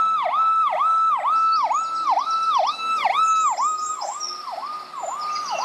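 Electronic siren of a toy ambulance: a high tone that dips down and back up about twice a second, stopping suddenly near the end.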